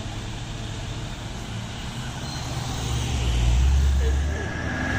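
Traffic on a hill road: passing vehicle engines and tyre noise, with a heavy low engine rumble swelling about three seconds in and easing off near the end.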